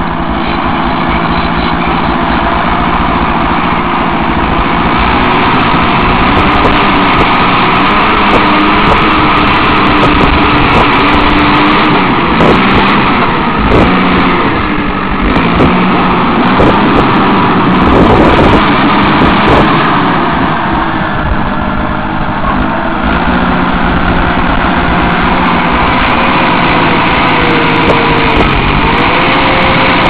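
Caterpillar D5 bulldozer's diesel engine running loud and steady under load as its blade cuts into a hillside and pushes dirt, the engine note shifting as the load changes.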